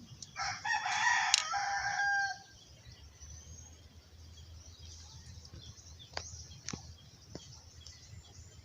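A loud bird call, one long pitched cry lasting about two seconds, then a few faint sharp clicks over a low hum.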